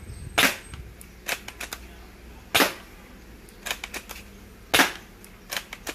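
ZM51 M24 bolt-action gel blaster firing: three loud, sharp snaps about two seconds apart, with lighter clicks of the bolt being worked between the shots.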